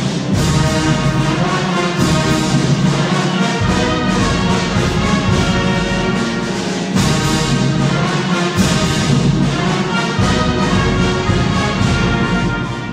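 Wind band playing, with the brass to the fore over percussion strokes that keep a steady beat.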